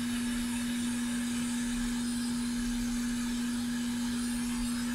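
Hot air rework gun blowing steadily onto a surface-mount MOSFET to melt its solder for desoldering: an even rush of air with a steady hum.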